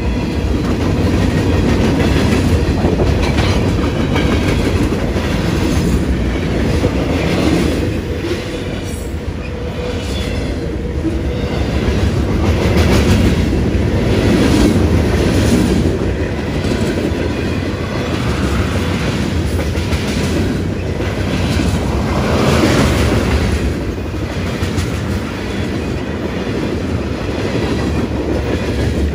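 Cars of a long CSX mixed-freight (manifest) train rolling past: a steady loud rumble with repeated clicks from the wheels on the track.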